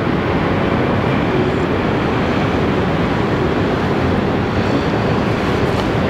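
Wind blowing across the camera microphone: a steady, loud rushing rumble.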